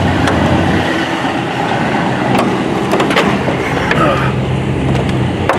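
Car engine idling, with a low steady drone and a few sharp clicks, over background chatter.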